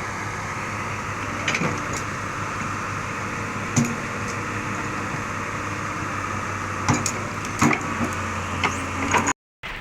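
Diesel engine of heavy recovery machinery running steadily, with a scattering of sharp knocks and clanks over it. The sound cuts out briefly near the end.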